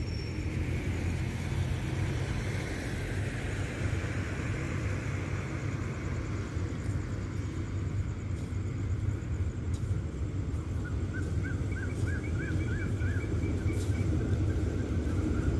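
Diesel passenger train approaching the station: a low, steady rumble that slowly grows louder.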